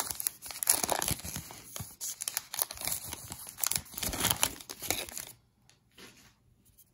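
Wrapper of a 2017 Topps Heritage High Number baseball card pack being torn open and crinkled by hand, a dense crackle that stops about five seconds in, leaving only faint rustles.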